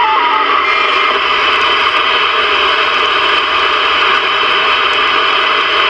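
Static hiss from a Ranger VR-9000 11-meter multimode radio's receiver, tuned to a channel with no signal on it. A short falling whistle sounds right at the start.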